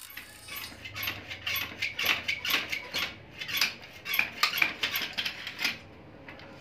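A spanner and the motor's metal bracket and bolts clinking and clanking as an add-on bicycle motor is unbolted from the rear wheel: an irregular series of sharp metallic clinks that stops near the end.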